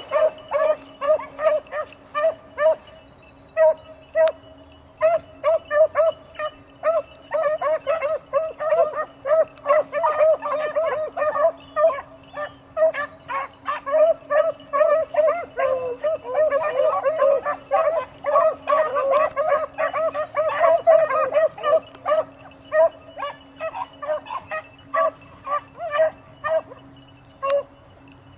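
A pack of beagles baying as they run a rabbit: many short, overlapping calls, several a second, thinning out over the last few seconds. The hounds are giving tongue on the rabbit's trail.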